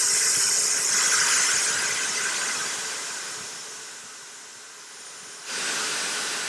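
High-pressure air hissing out of the Yong Heng compressor's bleed valve as the fill lines are depressurised after a 300-bar tank fill. The hiss fades over a few seconds as the pressure drops, then a second hiss starts suddenly near the end.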